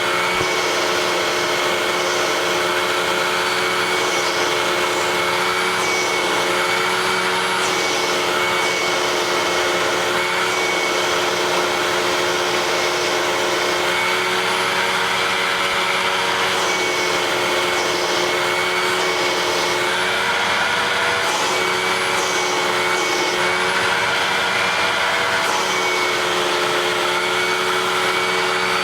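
Bagged vacuum cleaner running steadily, its motor whine holding one pitch apart from a few slight dips and wavers partway through.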